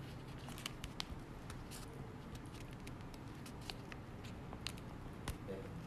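Scattered small clicks and taps of eating utensils against a bowl and plastic takeout containers, irregular and sharp, over a low steady room hum.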